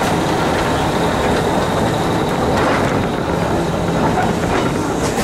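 Manx Electric Railway tramcar and open trailer rolling slowly past on the rails, a steady rumble of running gear and wheels.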